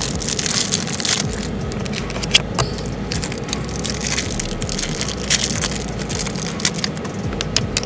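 A package being opened by hand: its wrapping crackles and crinkles in a dense run of irregular clicks and scrapes.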